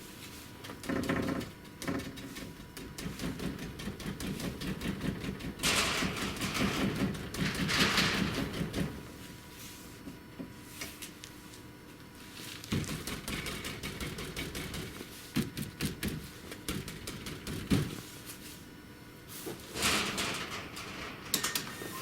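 Mazda NC Roadster door being handled, with a series of knocks and clatters and two longer noisy stretches. The sharpest single knock comes about 18 seconds in.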